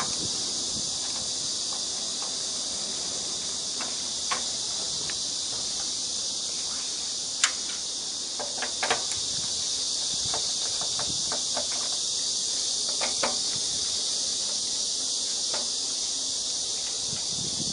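Steady high-pitched hiss with scattered light clicks and knocks, the loudest about seven and a half seconds in.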